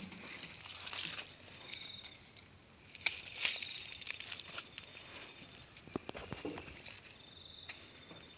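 Steady high-pitched buzzing of insects, with scattered clicks, footsteps and rustling from handling; a sharp click followed by a brief rustle about three seconds in is the loudest sound.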